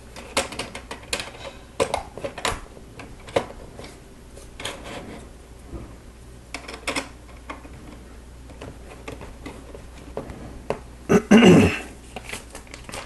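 Small plastic Lego bricks clicking together and tapping on a hard surface as pieces are picked up and pressed on, in scattered irregular clicks, with a louder, longer clatter a little over eleven seconds in.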